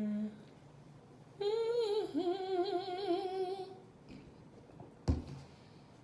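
A woman's drawn-out, wavering vocal sound from the throat, lasting a little over two seconds from about a second and a half in. A single sharp knock follows about five seconds in.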